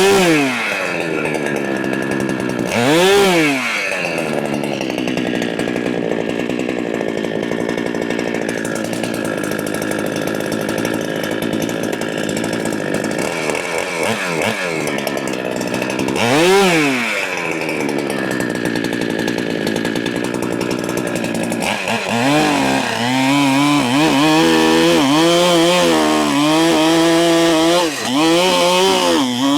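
Large two-stroke Holzfforma clone chainsaw idling, blipped up to a short rev three times, then held at high revs from about 22 s in with the pitch wavering and dipping, as when the chain is loaded in a cut.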